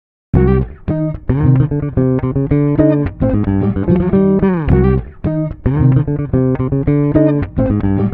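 Looped bass-guitar music from a GarageBand Live Loops grid, plucked notes in a repeating phrase with a second recorded part layered over it. It starts about a third of a second in, and some notes slide down in pitch.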